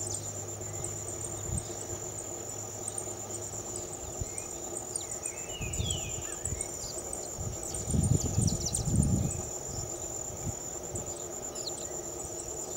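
Insects trilling steadily at a high pitch, with scattered faint bird chirps and a few low rumbles about eight to nine seconds in.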